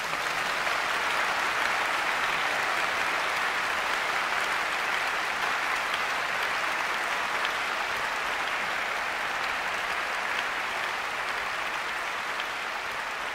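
Large concert-hall audience applauding steadily, easing off slightly near the end.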